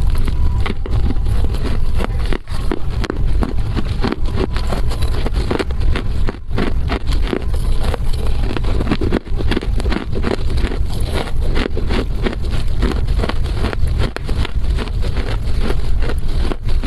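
Close-miked crunching and chewing of a dry chunk of loess clay: dense, irregular crackly crunches over a heavy low rumble.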